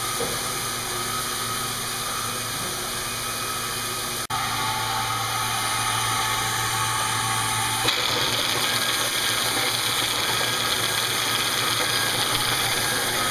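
Sawmill machinery running, a steady mechanical din with no break. The sound changes abruptly about four seconds in and again about eight seconds in.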